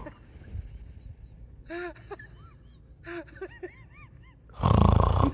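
A man snoring loudly: one harsh, rasping snore of under a second near the end.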